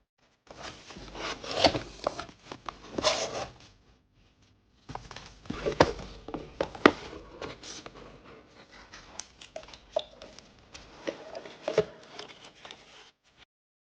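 Packaging of a keyboard case being handled and opened: rustling and scraping, stopping and starting, with many sharp taps and clicks.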